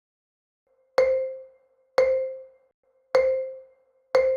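Four short chime tones of the same pitch, struck about a second apart, each ringing briefly and dying away, like a mallet or bell beep: a countdown cue.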